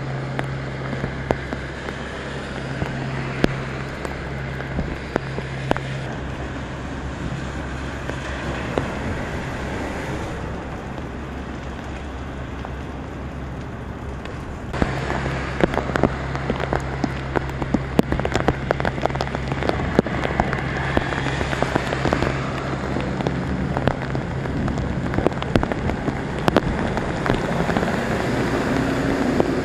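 Heavy rain pattering on pavement and floodwater, with drops striking close by, from about halfway through. Before that there is a steadier, quieter water-and-wind noise with a low hum. Near the end a city bus drives through the flooded road, its engine heard over the rain.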